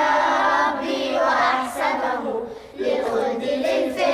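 A group of schoolgirls singing a religious song together in unison, pausing briefly about two and a half seconds in before going on.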